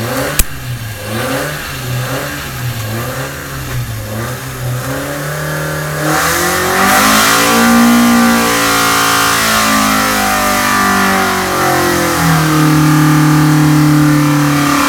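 Cosworth BDG 2.0-litre four-cylinder race engine with twin 48 DCOE carburettors running on an engine dyno: an uneven idle whose note wavers up and down for the first five seconds, with one sharp click just after the start. About six seconds in the revs rise, swing up and down, and from about twelve seconds in the engine holds a steady higher speed.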